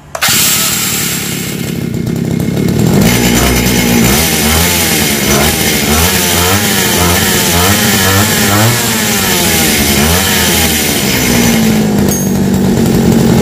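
Small two-stroke grass-cutter engine running, revved from a radio-control transmitter. Its speed rises and falls about once a second, eight or so times in a row, then settles to a steady speed near the end.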